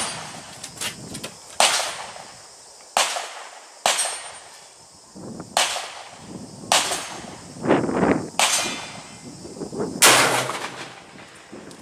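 Gunshots on a shooting range: about nine sharp reports at irregular intervals. The loudest, about ten seconds in, is a 12-gauge solid slug fired from an Adler B230 straight-pull shotgun.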